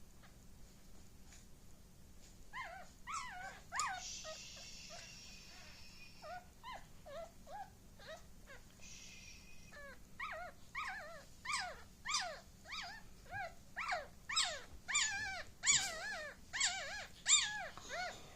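Newborn Korean Malshi puppy, a few days old, squealing and crying in high, short cries that protest being handled. The cries come sparsely at first, then quicken to several a second and grow louder over the last eight seconds.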